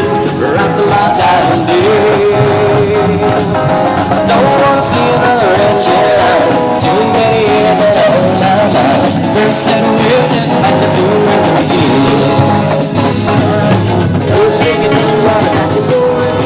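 Rock song with a male voice singing over guitar backing.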